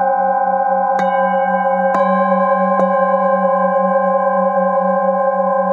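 Metal singing bowls struck with a wooden mallet three times, under a second apart, each strike adding fresh ringing tones over a sustained, layered ring. Underneath runs a deep hum that wavers in a slow, even pulse.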